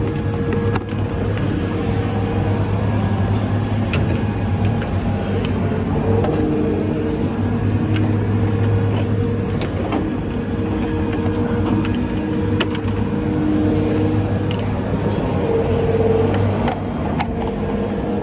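An engine running steadily with a low, even hum, with scattered short clicks and knocks over it.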